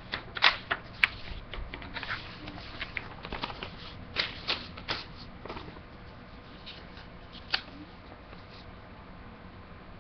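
Sheets of printer paper rustling and crackling as they are handled and swapped. The irregular crinkles come thickly over the first five seconds or so, with one more sharp crackle later.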